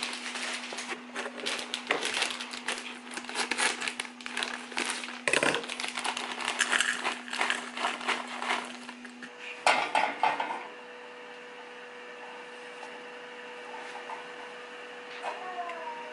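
A plastic bag crinkling and sliced almonds pattering into a ceramic bowl, a dense run of small clicks and rustles. About ten seconds in this stops, and a quieter steady hum is left with a few light scrapes of stirring in a saucepan.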